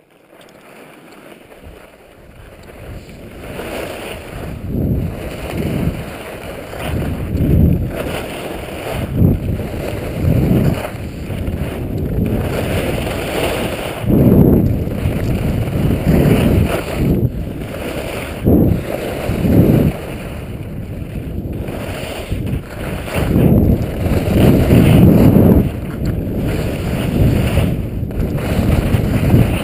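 Wind buffeting the skier's action-camera microphone, with skis sliding over packed snow. The rush builds over the first few seconds as speed picks up, then swells and eases every second or two.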